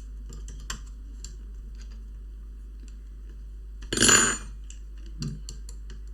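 Small clicks and taps of hands and tools working on an opened laptop's plastic and metal parts, with one louder, brief clatter that rings briefly about four seconds in.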